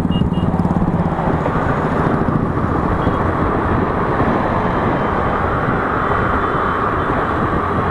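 Steady rush of wind on the microphone mixed with engine and tyre noise from a Honda Activa scooter cruising at road speed.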